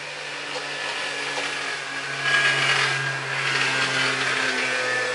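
A motor vehicle engine droning as it passes, loudest about halfway through, its pitch sinking slightly toward the end; no thunder.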